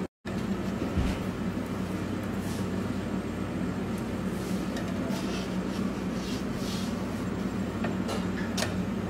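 Steady low mechanical hum over an even rushing noise, with a few faint light taps.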